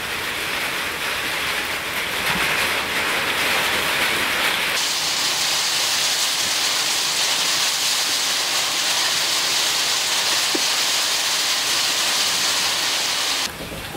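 A loud, steady hiss like rain or sizzling, growing brighter about five seconds in and cutting off suddenly near the end.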